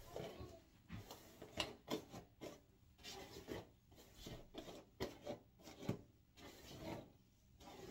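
Hairbrush being pulled through long hair in a run of short, irregular strokes, about one or two a second.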